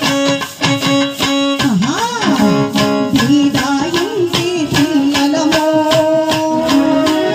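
Chekka bhajana folk devotional music: a woman singing a gliding melody into a microphone over the sharp, quick, steady strikes of wooden chekka clappers with jingles and a hand drum. Long held notes sound beneath.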